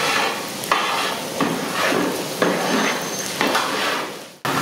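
Dried red chillies sizzling in hot oil in a large metal pan while a ladle stirs them, knocking and scraping against the pan four times. The sizzle fades away near the end.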